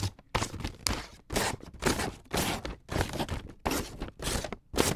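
Scissors cutting through a sheet of paper in a steady run of crisp snips, about two a second.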